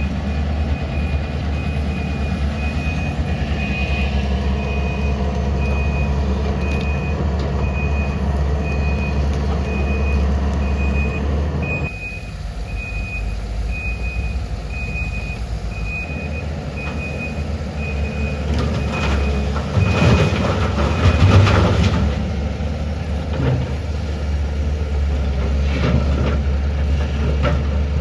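Heavy diesel machinery running with a steady low drone while a backup or travel alarm beeps about once a second, stopping near twenty-one seconds in. A burst of loud clattering comes around twenty seconds in, during excavator loading of a tipper truck.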